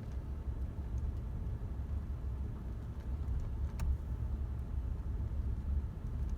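A car's engine running, heard from inside the cabin as a steady low rumble, with a single faint click about four seconds in.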